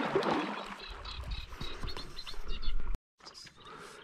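Paddle strokes splashing and pulling through river water, with small birds chirping. The sound cuts out abruptly for a moment about three seconds in.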